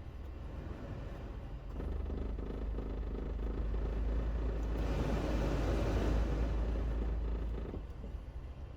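Suzuki Every kei van's three-cylinder engine running with a steady low rumble, growing louder about two seconds in and swelling into a broad rushing noise before dropping back near the end.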